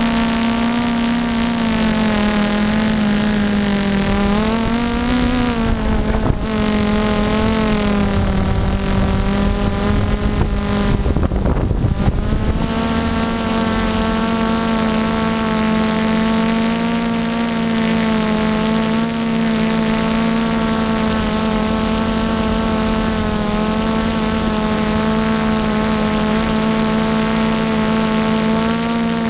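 Y6 tricopter's six brushless motors and propellers running in flight: a steady, loud electric hum with a whine of overtones, its pitch wavering up and down for a few seconds as the motors adjust. A few seconds in the middle, a rush of wind noise on the microphone swamps the hum briefly.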